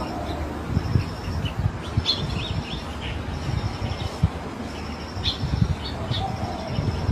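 Small birds chirping, with short pulsed trills repeating every second or two, over an irregular low rumble on the microphone.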